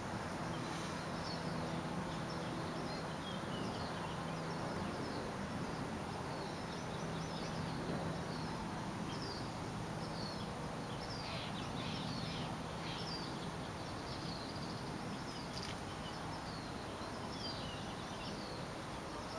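Outdoor ambience: small birds chirping on and off, short high calls scattered throughout, over a steady background hiss. A faint low hum fades out about two-thirds of the way through.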